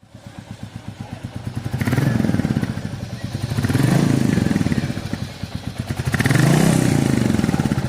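Royal Enfield Classic 350's single-cylinder engine running with a steady beat of exhaust pulses. It is revved three times, about two seconds apart, the pitch rising and falling with each blip.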